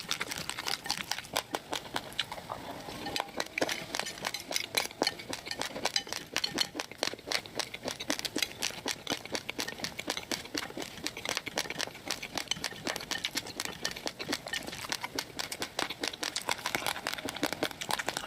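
Raw rice grains being chewed, a quick, irregular run of small dry crunches and crackles.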